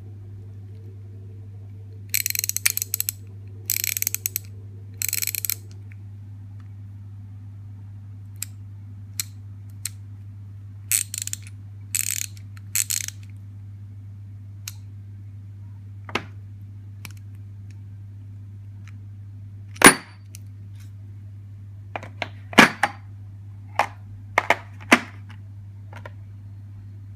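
Ratchet handles from a Halfords Advanced socket set being clicked through their pawls: three bursts of rapid ratcheting about two seconds in, three shorter bursts a few seconds later, then scattered sharp clicks and knocks of the metal tools being handled, the loudest about twenty seconds in. A steady low hum runs underneath.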